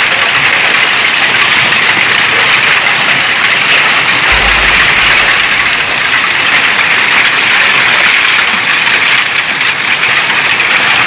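Hailstorm: hail and rain pelting down in a loud, dense, steady hiss, with a brief low rumble about four seconds in.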